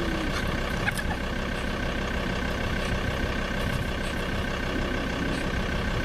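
Vehicle engine idling steadily, a constant low rumble with a few steady tones on top.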